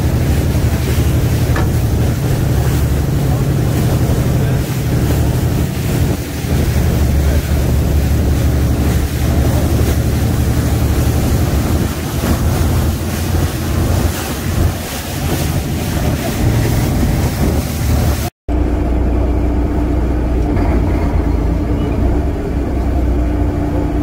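A fishing boat's engine running, with heavy wind noise on the microphone and sea water rushing. After a sudden break about three quarters of the way through, the engine hum goes on steadier with much less wind.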